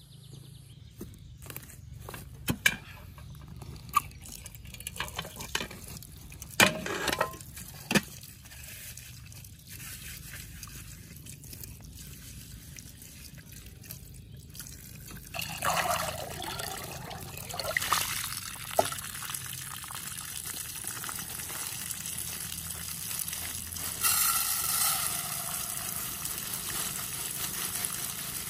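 Scattered knocks and clatter of handling things, then water splashing, and in the last few seconds a steady stream of water pouring into a metal pot of rice to rinse it.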